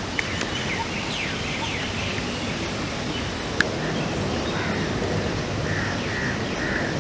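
Steady rain falling, with birds calling from the trees in short repeated notes, and one sharp click about halfway through.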